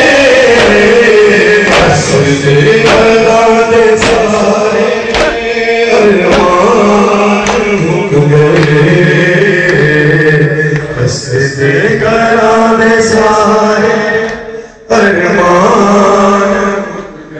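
Men's voices chanting an Urdu noha, a Shia lament, with the sharp slaps of bare-handed chest-beating (matam) about once a second. The chant dips briefly near the end before picking up again.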